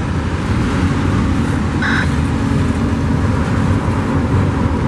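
Double-stack intermodal freight train rolling past at close range: a steady rumble and clatter of the well cars' steel wheels on the rails, with one brief high squeak about two seconds in.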